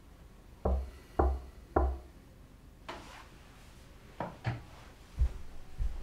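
Three heavy thuds about half a second apart, then a few lighter knocks and thumps of someone climbing out of bed and stepping across a wooden floor.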